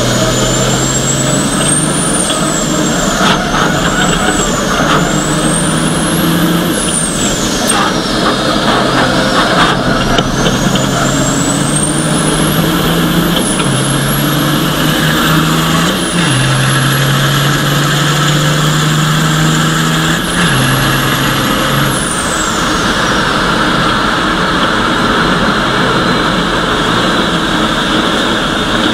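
Ford Copa Truck race truck's diesel engine at racing speed, heard on board. A high whine climbs and drops back several times as the truck changes gear, then falls away steadily over the last several seconds as it slows.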